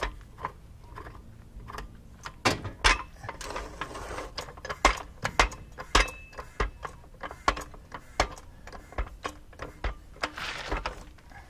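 Hammer blows driving out a trailer leaf-spring mounting bolt: a dozen or so sharp metal knocks at an uneven pace. One blow about six seconds in rings briefly.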